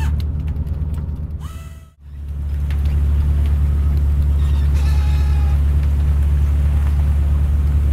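Steady low drone of a purse seiner's engine and hydraulic deck machinery while the net is hauled. It cuts out briefly about two seconds in, then comes back steady and a little louder.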